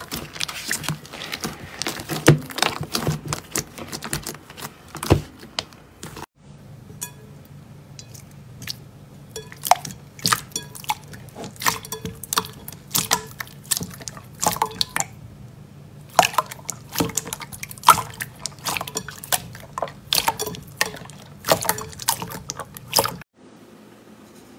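Slime being squeezed and pressed by hand, making wet squelches and many sharp little pops and clicks in quick, irregular succession. It stops abruptly near the end.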